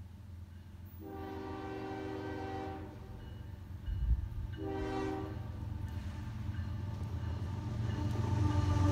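Union Pacific freight locomotive sounding its horn: one long blast, then a short one about two seconds later, over the low rumble of the diesel train, which grows louder near the end as the locomotive draws alongside.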